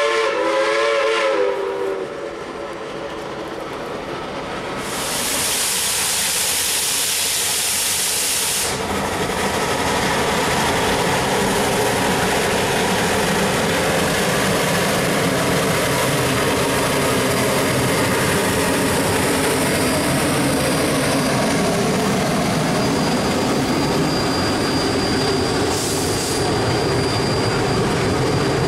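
Shay geared steam locomotive: its chime whistle ends about two seconds in, then a loud burst of steam hiss for about four seconds, followed by the steady mixed noise of the locomotive and its cars running past at close range, with a shorter hiss of steam near the end.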